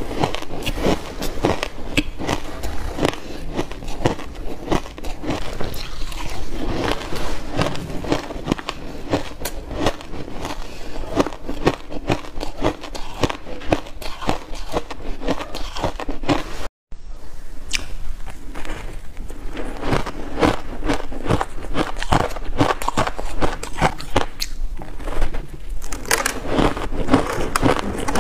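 Close-up crunching and chewing of refrozen shaved ice in the mouth: crisp crunches one after another, with a split-second gap about two-thirds of the way through.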